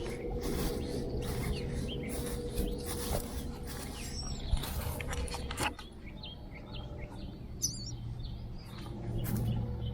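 Rustling and crackling of dry nesting material being handled, with a few short, high chirps from starlings, one of them wavering, about two thirds of the way in. A faint steady hum runs underneath.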